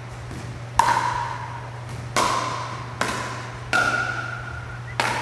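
Pickleball rally: a plastic ball struck back and forth by paddles, five sharp pops about a second apart, each with an echoing ring.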